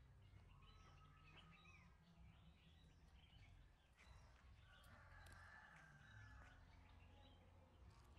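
Near silence: faint outdoor ambience with a low steady rumble and scattered bird chirps.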